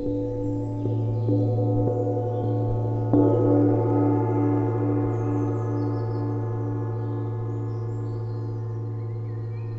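Large hanging gong struck with two mallets several times in the first three seconds, the strongest stroke about three seconds in, then ringing on and slowly fading with a steady pulsing waver. Faint bird chirps sound over it.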